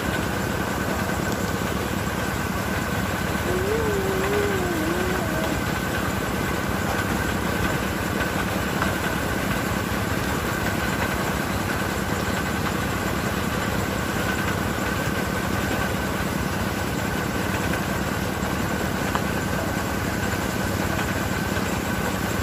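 Steady mechanical drone, like a motor or engine running nearby, with a constant hum that does not change. A short wavering tone sounds about four seconds in.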